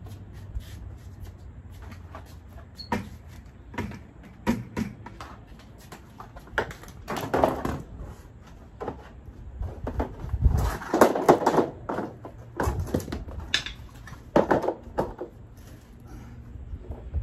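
Irregular knocks, clatter and scraping as plastic shelving parts and other stored items are handled and set down, with louder bouts of clatter a few times.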